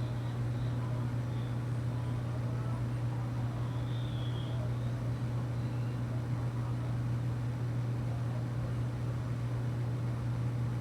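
Steady low hum with a faint hiss over it, unchanging throughout, and a few faint high chirps, one about four seconds in.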